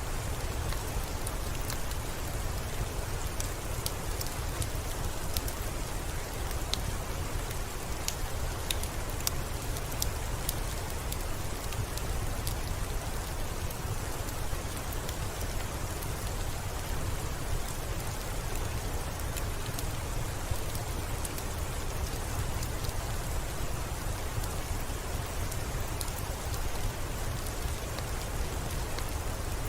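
Steady gentle rain on a window glass, an even hiss over a low rumble, with scattered sharp little ticks of single drops.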